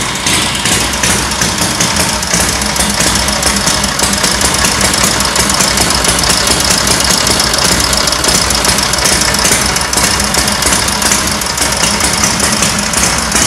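The freshly rebuilt 500cc side-valve flat-twin engine of a 1920s BMW R42 motorcycle, running steadily at a fast idle on its first outings after decades standing.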